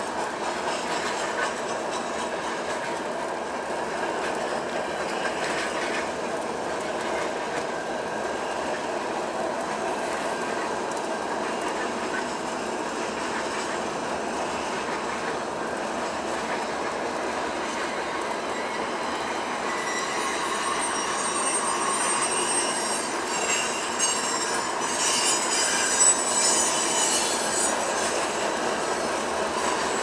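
Freight cars of a mixed freight train rolling past at speed: a steady rumble and clatter of steel wheels on the rails. From about two-thirds of the way through it grows louder, with high-pitched wheel squeal.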